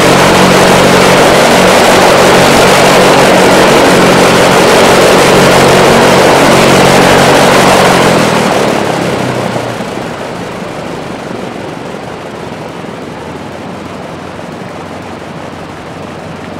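The twin Allison V-1710 liquid-cooled V-12 engines of a Lockheed P-38F Lightning, running loud at high power on a ground run. About eight seconds in the sound drops sharply and settles into a much quieter, steady run.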